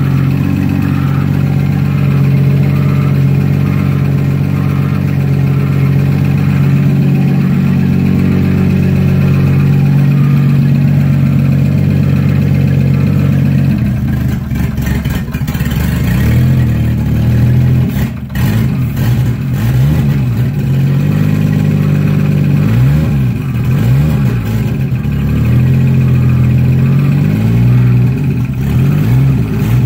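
Toyota 7M-GTE turbocharged inline-six running at a steady idle, then revved up and down repeatedly from about halfway. The engine makes a noise the owner has not traced, even after checking the rod bearings and oil pump and clearancing the oil pan.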